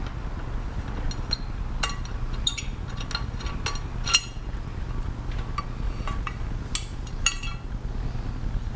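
Light metallic clinks and ticks of hand tools and small hardware being handled during motorcycle turn-signal work, a dozen or so scattered strikes with the sharpest about four seconds in and again about seven seconds in, over a steady low hum.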